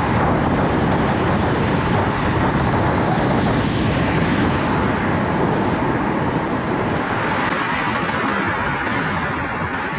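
Steady road and tyre noise from a car driving along a street.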